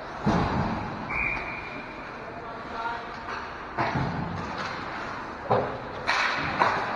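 Ice hockey game sounds: sharp knocks of sticks and puck on the ice and boards, about five over the stretch, echoing in the rink, with players' voices calling out.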